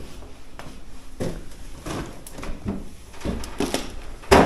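Parcels being searched through and shifted on a shelf: scattered knocks and rustles of boxes and packaging, with one louder knock near the end.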